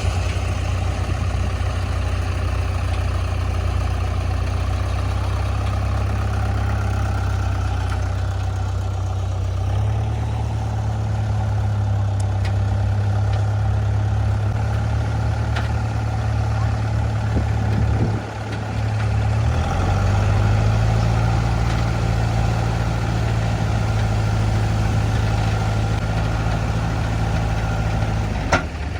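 Heavy diesel machinery engine running steadily at low revs. Its note steps up about a third of the way in, drops out briefly a little past the middle, then picks up again.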